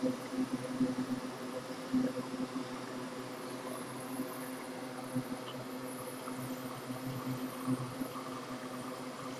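Hot air rework station blowing steadily through its nozzle onto a BGA chip to heat it for removal: an even hum with a constant hiss of air.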